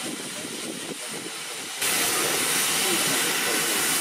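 Standing GWR Manor class steam locomotive 7822 hissing steam steadily. The hiss jumps abruptly louder a little under two seconds in.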